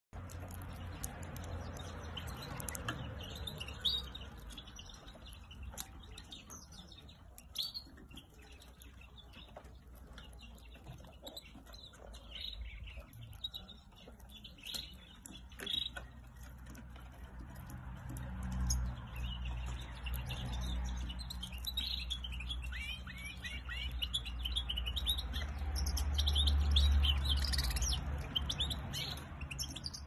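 European goldfinch twittering and chirping in rapid runs of short notes, thickest in the second half. A low rumble runs under the later part and is loudest near the end.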